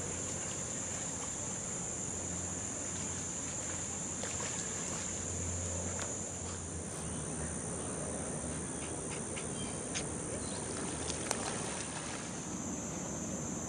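Steady high-pitched insect chorus buzzing, over a faint low hum, with a few faint clicks in the second half.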